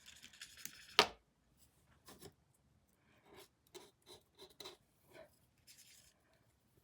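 Faint handling sounds of a small paintbrush and painting tools: one sharp click about a second in, then a string of short, light scrapes and taps.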